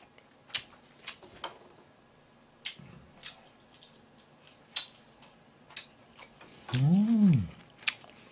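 Scattered sharp, light clicks, about eight of them at irregular spacing. Near the end comes a short hum that rises and then falls in pitch.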